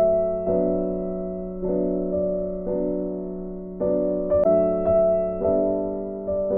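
Background music: slow keyboard chords, a new chord struck about once a second and fading before the next, over a steady low note.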